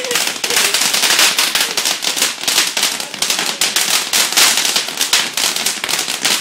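Ground fountain firework spraying sparks, with a dense, continuous crackle of small pops over a hiss.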